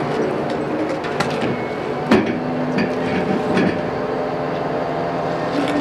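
A crane's diesel engine running steadily while a heavy steel frame is hoisted on chains, with a few sharp metal knocks from the load and rigging, the loudest about two seconds in.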